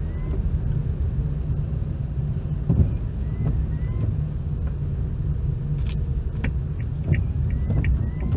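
Steady low rumble of a car's engine and tyres heard from inside the cabin, driving slowly on a wet road. A few faint short squeaks and clicks come as the windshield wipers sweep.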